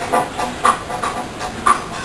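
Tango music with a marked, even beat: a strong accent about once a second, with lighter ones between.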